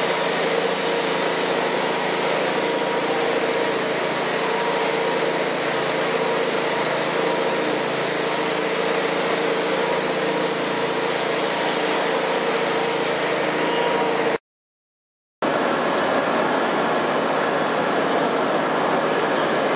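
Steady, loud machinery drone with a hiss and an even hum, echoing in a road tunnel. It drops out for about a second near the end at an edit, then a similar steady drone carries on.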